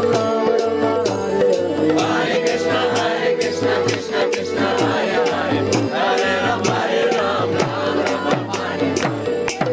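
A group of devotees singing a kirtan together over a sustained pitched drone, with a steady beat of sharp percussive clicks.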